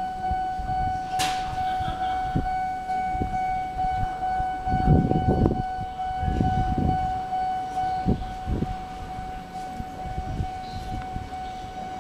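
Steady, unbroken electronic warning tone sounding over the platform, signalling that a train is approaching. Low rumbling thumps come and go over it, loudest about five seconds in.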